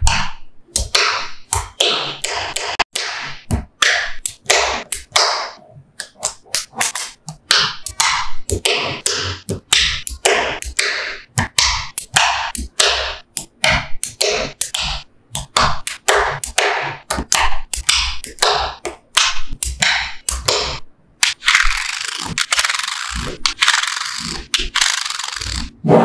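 Small magnetic balls clicking and snapping together as strips of them are pressed onto a magnet-ball block: many sharp clicks in quick, irregular succession. About five seconds from the end they run together into a continuous clatter.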